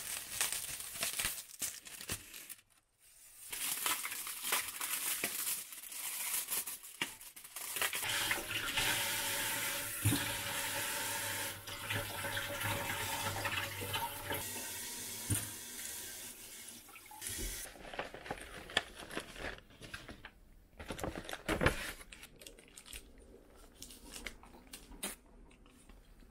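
Kitchen tap running into a stainless steel sink while strawberries are rinsed under it; the water starts about a third of the way in and cuts off suddenly about two-thirds through. Scattered clicks and rustling from handling come before and after the running water.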